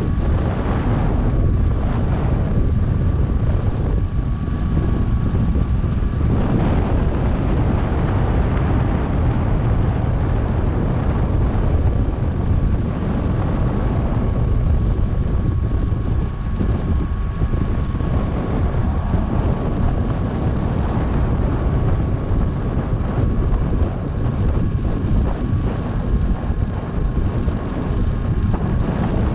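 Wind rushing over an action camera's microphone on a fast downhill bicycle ride: a steady, loud low buffeting, with a faint thin whine running through it.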